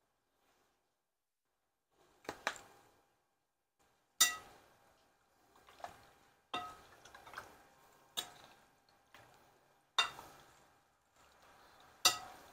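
Metal spoon clinking against a glass mixing bowl as raw chicken pieces are stirred: sharp, ringing knocks at irregular intervals of a second or two, starting about two seconds in.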